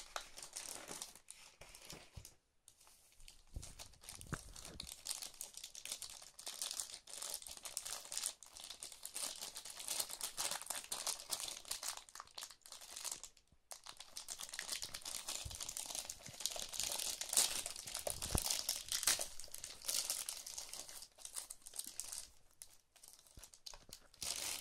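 Paper rustling and crinkling as a printed booklet manual and leaflets are handled and opened, in bouts with brief pauses.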